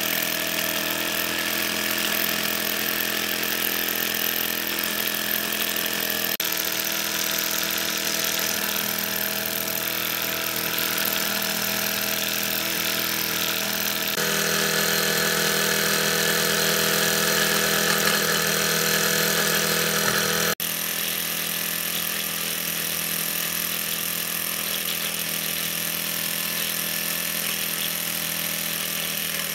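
Mamod Minor 2 toy steam engine's single cylinder running steadily at full speed, with steam hissing from the exhaust. The sound changes level abruptly a few times.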